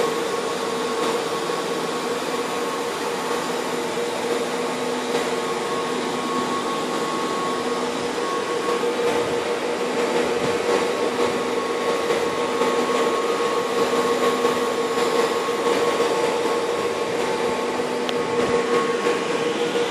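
Steady whirring drone of cooling fans in cell-site radio equipment, with a constant hum over the rushing noise.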